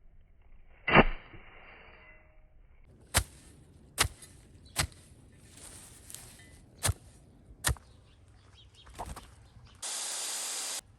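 Sharp knocks: one loud knock about a second in, then five more in two quick groups, each knock under a second apart. A short steady hiss follows near the end.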